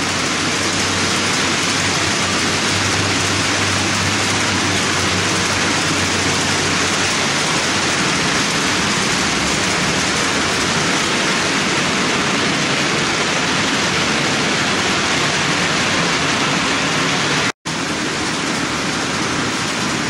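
HO-scale model train of 40-foot ice-bunker reefer cars rolling along the layout track: a steady, even rushing noise, cut off for an instant near the end.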